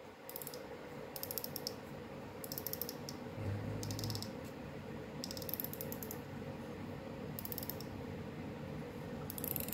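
Daiwa BG SW 4000D-CXH spinning reel's ATD drag clicking as it is worked by hand. It comes in about seven short bursts of rapid, fine ticks, a second or so apart.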